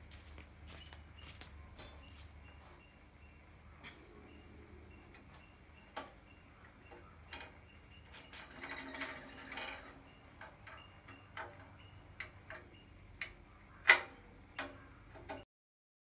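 Scattered light clicks and taps of tools and metal bicycle parts being handled, with a busier stretch of rattling in the middle and one sharp loud click near the end, over a faint steady high-pitched whine. The sound cuts off abruptly just before the end.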